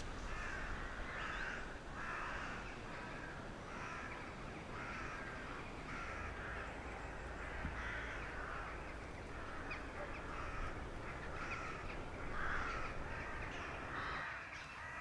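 Crows cawing repeatedly as they gather at their roost: harsh calls about one to two a second, some overlapping.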